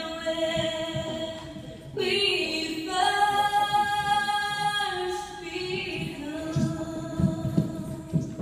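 Voices singing long, held notes without instruments, the pitch changing every second or two. Dull low thumps come in the last few seconds.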